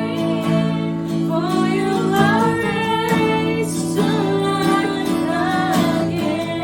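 Worship song: a woman singing a slow, wavering melody over strummed acoustic guitar chords.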